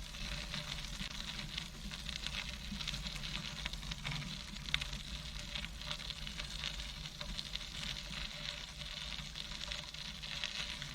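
Tandem bicycle's tyres rolling along a trail surface: a steady crackling hiss with many small ticks.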